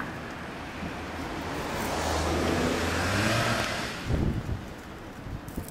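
A motor vehicle's engine growing louder as it accelerates past, its note rising slightly at its loudest about three seconds in, then fading. A few brief low thumps follow around four seconds in.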